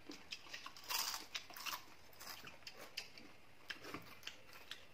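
Faint close-up eating sounds: chewing and crunching of chicken curry and rice eaten by hand, with scattered small clicks and crackles of fingers working food on steel plates, loudest about a second in.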